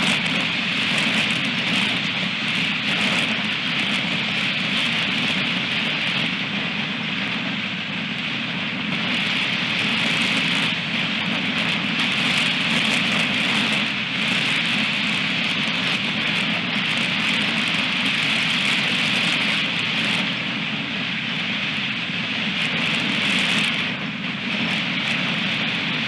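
Strong wind buffeting the nest camera's microphone: a steady rushing noise that swells and eases in gusts, loudest around the middle and again near the end.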